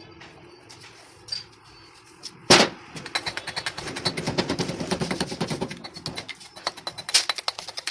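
Motorcycle engine disassembly with metal tools: one loud sharp knock about two and a half seconds in, then a fast, dense run of clicks and rattles that lasts to the end.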